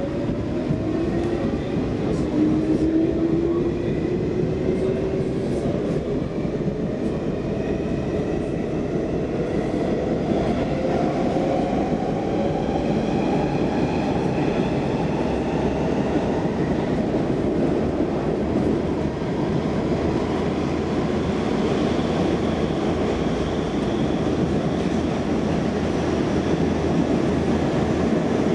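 Stockholm Metro C14 train accelerating away from a station, heard from inside the car: the traction motors whine in several rising tones over roughly the first fifteen seconds, then the train settles into a steady running noise of wheels on rail in the tunnel.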